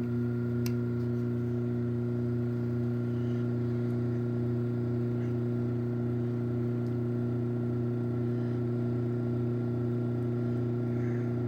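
Chamberlain B353 belt-drive garage door opener running as it raises the door: a steady motor hum with a fainter higher whine above it.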